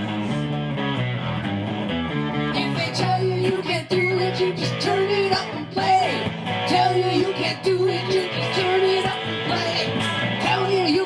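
A rock song played live on guitar and bass with a steady beat. From about three seconds in, a lead line bends up and down in pitch over the band, in an instrumental stretch with no lyrics.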